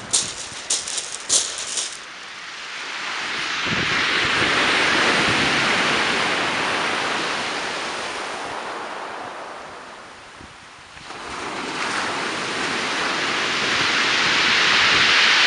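Surf breaking and washing up a shingle beach, swelling twice and easing off in between. A quick run of sharp clicks and rattles sounds in the first two seconds.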